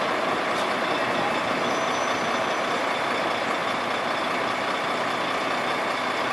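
Scania 113 coach's rear-mounted diesel engine running steadily as the bus pulls out of the station.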